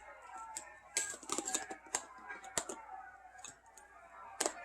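Irregular light clicks and taps of hard plastic being handled, as when unpacking and fitting together a cordless stick vacuum's parts.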